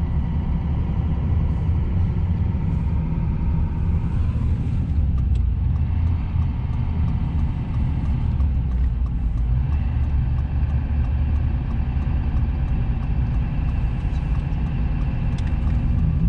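Pickup truck driving, heard from inside the cab while towing a trailer: a steady low rumble of engine and road noise.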